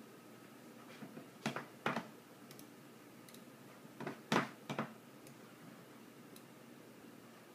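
Sharp clicks in two quick groups of about three, one group a little over a second in and another about four seconds in, over faint steady hiss.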